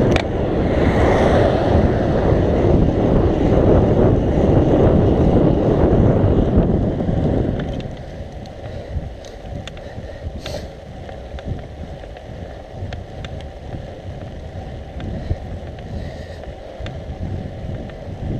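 Wind rushing over the microphone of a camera on a moving road bike. It is loud for the first seven seconds or so, then drops much quieter, with a few faint clicks.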